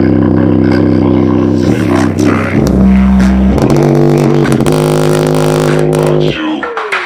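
A JBL Flip 4 portable Bluetooth speaker playing bass-boosted music loud, its drivers putting out deep sustained bass notes that change pitch every second or so. Near the end the bass drops out briefly with a falling glide, then comes back.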